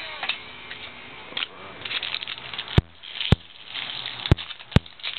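Trading cards rustling and crinkling as they are handled and flipped through, with four sharp clicks a little past halfway.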